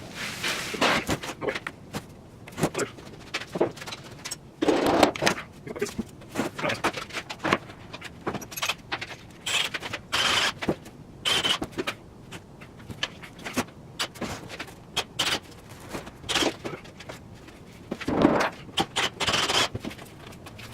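Planer parts and packing being handled while a box is unpacked: irregular clunks, scrapes and metal clinks, a few louder knocks among them.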